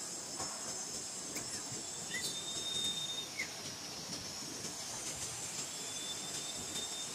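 Steady high-pitched insect chorus drone, with a thin whistle-like tone held for about a second, twice, and a few short falling chirps.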